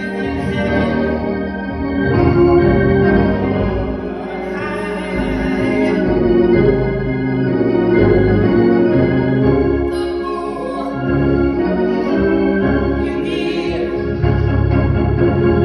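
Church organ playing slow, sustained chords that change every couple of seconds, with deep bass notes coming in and out.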